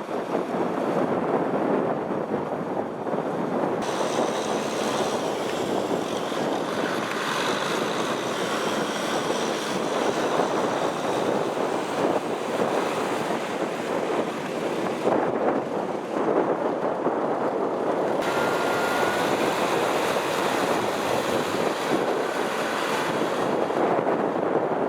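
Tractor diesel engines running under load while plowing a flooded mud field, mixed with a steady rush of churning mud and water and wind on the microphone. The sound shifts abruptly a few times.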